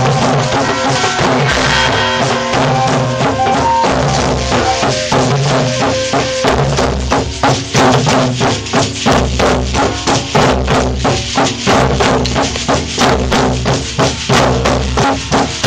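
A drum circle of djembes and other hand drums played together in a dense, steady rhythm. Held pitched notes sound over the drumming at first. About six or seven seconds in, the beat settles into strong, even low strokes, about three to four a second.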